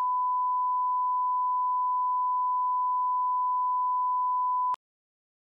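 1 kHz line-up test tone played with broadcast colour bars: one steady, unbroken pitch that cuts off suddenly near the end.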